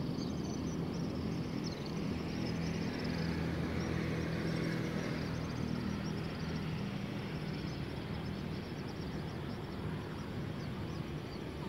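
Night ambience of traffic hum, with a vehicle engine swelling and fading in the middle, under insects chirping in rapid high-pitched trills.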